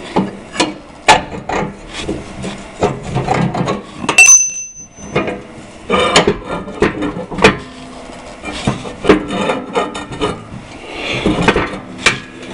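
Metal pin and brace of a snow blade's mounting hitch knocking, clicking and scraping as a pin is worked into place by hand, with one bright ringing metallic ping about four seconds in.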